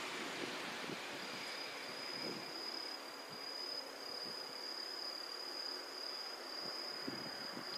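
An insect trilling on one steady high pitch, starting about a second in, over a steady background hiss.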